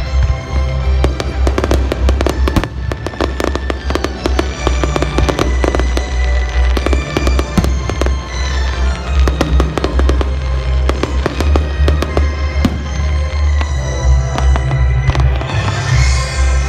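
Fireworks display: many sharp cracks and bursts from aerial shells, with thick runs of crackling about a second in and again around ten seconds in. They sound over loud music with a heavy, pulsing bass.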